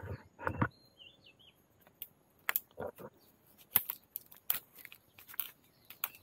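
Dry bamboo twigs and leaf litter crackling and snapping in irregular sharp cracks as a gloved hand pushes through a bamboo clump. A few short bird chirps about a second in.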